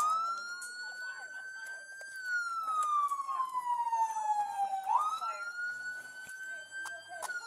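Police vehicle siren on wail. Two slow up-and-down cycles of about five seconds each: the pitch jumps up quickly, climbs a little more, then falls slowly.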